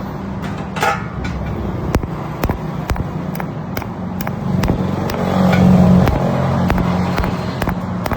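Steady mechanical hum from running machinery, swelling briefly around the middle, with many sharp clicks or knocks at irregular intervals.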